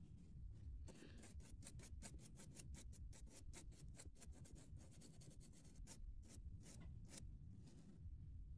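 A paintbrush scrubbing quickly back and forth over a 2 mm card model platform surface, wiping off wet pastel-chalk weathering. The faint, scratchy strokes come about five a second, starting about a second in and stopping near the end.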